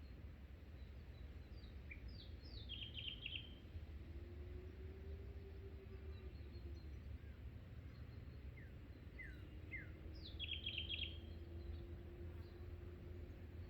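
Songbird calling twice, each phrase a few quick falling notes followed by a rapid run of short chirps, about 3 seconds in and again about 10 seconds in. A steady low rumble and a faint hum lie beneath.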